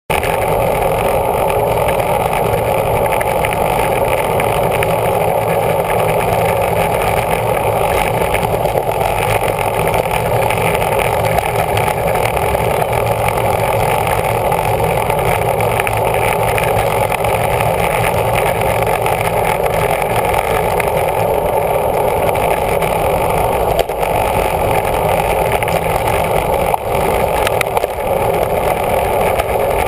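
Steady wind and road rush on a bicycle-mounted camera's microphone as the rider goes along at road-race speed, roughly 19 to 28 mph.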